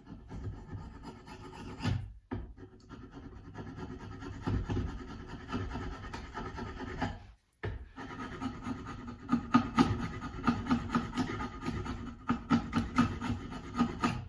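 Hand file scraping in repeated push strokes, getting quicker and louder in the second half, with two short breaks.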